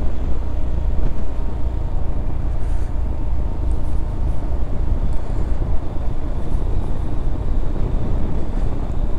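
Yamaha XMAX 250 scooter cruising at road speed, heard from the rider's helmet: a steady rush of wind and road noise with the single-cylinder engine running underneath.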